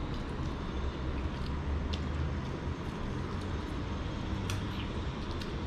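Steady low background rumble with a few faint short clicks from eating by hand at the table.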